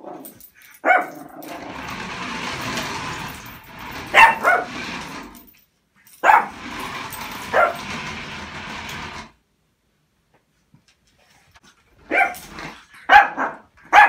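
Shih Tzu puppy barking in short, sharp single barks, then a quicker run of barks near the end after a pause of a couple of seconds. Under the earlier barks runs a steady noise that stops abruptly twice.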